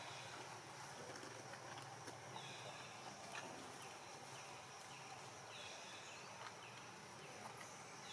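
Quiet outdoor ambience with a faint low hum and faint short high chirps repeating about once a second.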